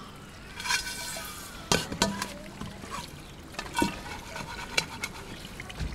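Water trickling from a hose as raw mutton pieces are washed by hand, with a few sharp knocks of the meat and metal pot.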